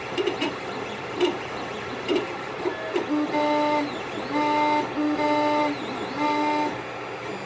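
Creality CR-10S 3D printer printing with no vibration-damping pads under its feet: the stepper motors buzz in short blips and clicks of quick moves, then from about three seconds in sing several held tones of about a second each during longer moves. A steady hum runs underneath.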